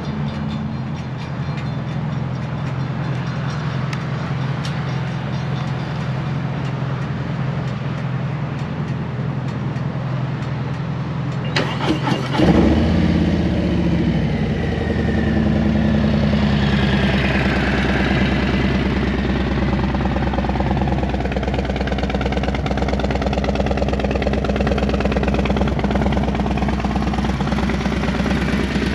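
Harley-Davidson Milwaukee-Eight 117 V-twin starting up through a Thunderheader exhaust: after a steady low hum, the starter cranks briefly about twelve seconds in, the engine catches with a loud burst, then settles into an even idle.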